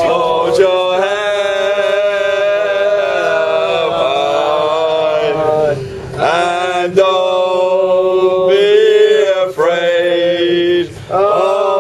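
A group of men singing a football chant together, loud and drawn out on long held notes, with short pauses for breath about halfway through and near the end.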